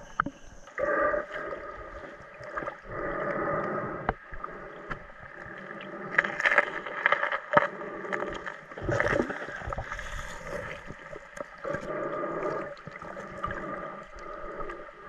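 Sea water sloshing and gurgling around an action camera held at and just under the surface, muffled, with scattered sharp clicks and knocks.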